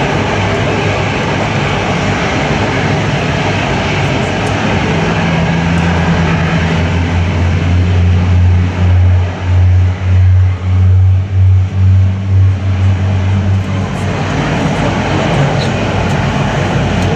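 Airbus A380 jet engines running during pushback: a steady rushing noise under a low drone that swells in the middle and pulses about twice a second for several seconds before settling.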